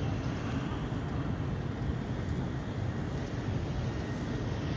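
Wind buffeting the microphone: a steady low rumbling rush with a fainter hiss above it.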